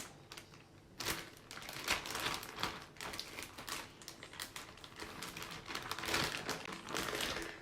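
Plastic marinade bag holding chicken wings and shrimp crinkling and rustling in irregular bursts as it is handled, starting about a second in.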